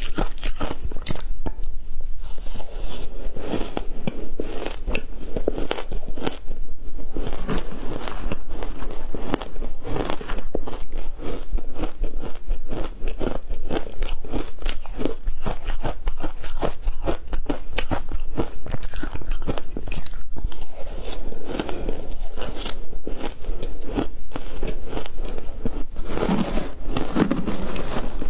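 Mouthfuls of crushed ice dusted with matcha powder being bitten and chewed: a dense, irregular run of crisp crunching cracks.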